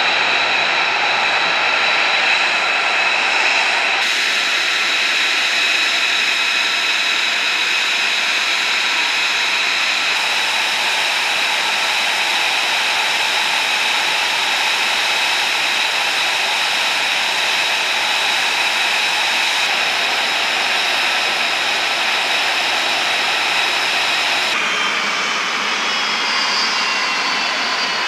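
F-35B's F135 turbofan jet engine running with a steady high-pitched whine over a rushing noise. Near the end several whining tones fall in pitch as the engine spools down.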